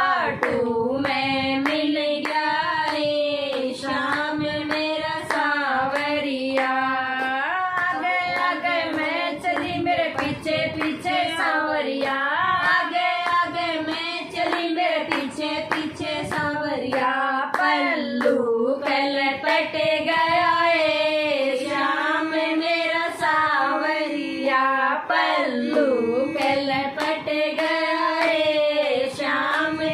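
Several women singing a Hindi devotional bhajan together, clapping their hands in a steady rhythm throughout.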